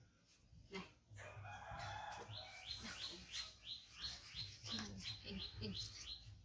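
Chickens calling: a rooster crows about a second in, followed by a run of quick rising chirps, about three a second, and a few low clucks near the end.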